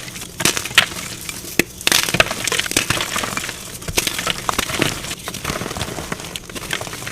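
Blocks of dyed gym chalk being crushed, an uneven run of crisp crunches and crackles as the chalk breaks and crumbles.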